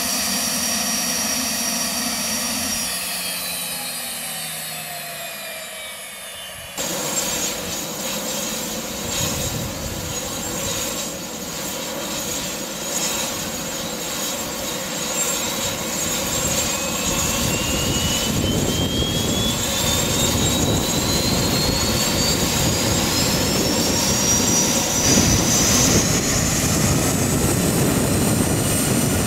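Hawker 900XP business jet's Honeywell TFE731 turbofan engines. First a whine that falls in pitch and fades as the jet taxis. After an abrupt cut comes a steady rushing noise, with a whine that rises slowly over about ten seconds as an engine spools up on startup.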